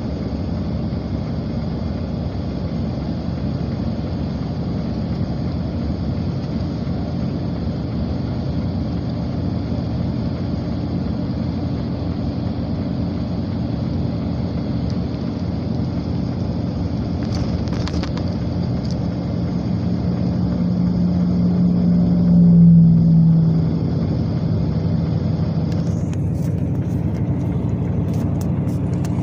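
Steady road and engine rumble of a car driving along a highway. A low hum swells and fades again about three quarters of the way through.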